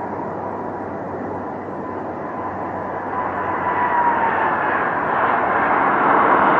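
Twin-engine jet airliner landing: steady jet-engine noise with a high whine that dips in pitch about four seconds in, as the plane touches down. The sound grows louder toward the end.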